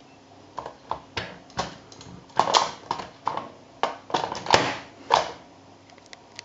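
Hard plastic clicking and clacking as the toy cow figure of a VTech Go! Go! Smart Animals farm playset is handled and set on the playset's plastic pad: about a dozen irregular knocks with short scrapes, stopping a little after five seconds in.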